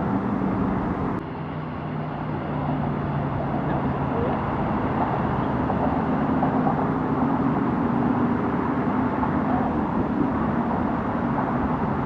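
Steady road traffic noise from cars, a continuous hiss with a low hum.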